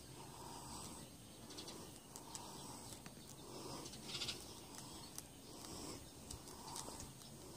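Faint animal call repeated about once a second, with a few light clicks.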